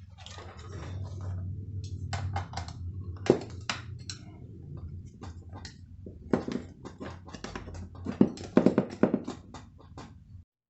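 Irregular small metal clicks and light knocks from an Allen wrench and bolt hardware being worked as a chair leg is unbolted, over a low steady hum.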